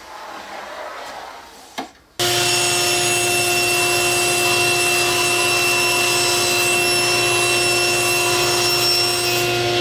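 Power saw cutting through 3/4-inch plywood, running steadily with a constant whine. It starts abruptly about two seconds in, after a softer noise.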